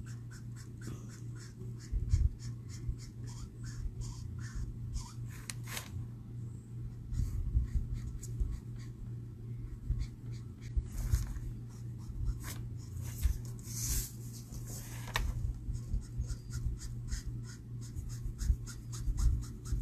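Marker nib scratching over cardstock in quick, irregular colouring strokes. The marker is running low on ink and needs a refill. A low steady hum sits underneath.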